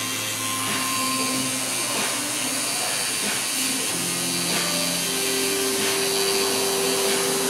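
Coil tattoo machine buzzing steadily as the artist runs the needle into the skin of a forearm.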